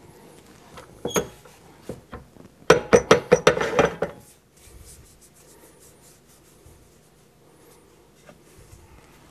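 Metal clinks and clatter as a wood lathe's tailstock is handled on its bed: a single ringing clink about a second in, then a rapid run of knocks and rattles lasting about a second and a half, followed by faint handling noise.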